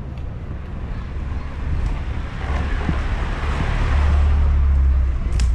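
Wind buffeting the microphone at skating speed, growing stronger about four seconds in, over the rushing hiss of inline skate wheels rolling on asphalt.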